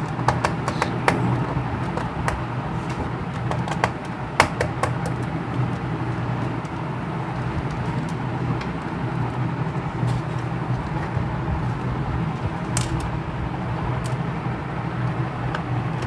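Small scattered clicks and taps of a screwdriver and screws against a laptop's plastic bottom case as screws are driven back in, a few louder single clicks among them, over a steady low hum.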